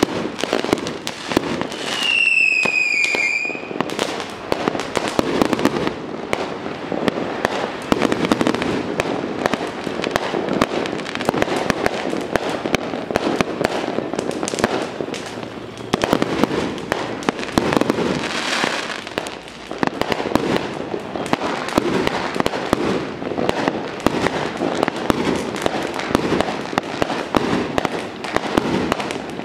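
Strings of firecrackers going off in a dense, continuous crackle of rapid bangs. About two seconds in, a short high whistle falls slightly in pitch.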